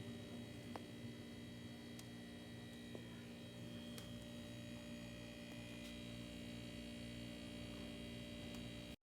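Water cooler dispenser running with a steady electrical hum made of several held tones, with a few faint ticks.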